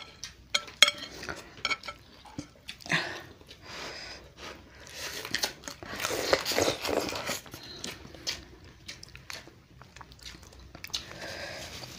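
Close-up eating sounds: crab shells cracking and snapping as the legs are broken apart and bitten, with chewing. The loudest stretch comes about six seconds in.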